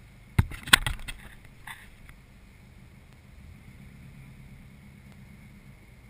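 A quick cluster of sharp knocks about half a second in, then a fainter one, over the low, steady idle of an Audi RS4's V8 heard from inside the cabin.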